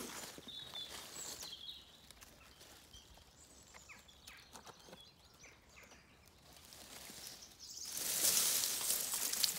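Leaves and twigs rustling loudly as a hand pushes ivy-covered branches aside, starting near the end. Before that, a few faint bird chirps and small ticks.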